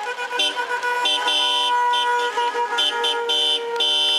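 Several car horns honking together from a slowly passing caravan of cars: overlapping tones of different pitch, some held and some in repeated short blasts, with a long blast near the end.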